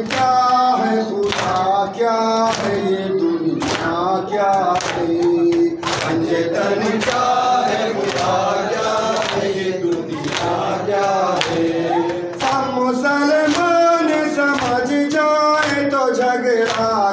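Men's voices chanting an Urdu noha together into a microphone, a lead voice with others joining in unison. Sharp chest-beating (matam) strikes keep a steady beat under the chant, about one or two a second.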